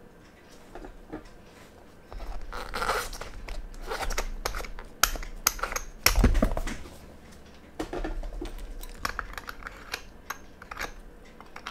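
A metal tool scraping and clicking against the edge of a stainless steel watch case back as it is pried open, with handling knocks; the loudest knock comes about six seconds in.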